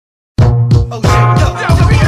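Hip hop track starting suddenly about a third of a second in, with a heavy bass line and drum beat.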